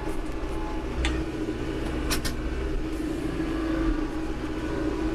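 Heavy-equipment diesel engine running steadily, with sharp knocks about a second in and two more close together about two seconds in.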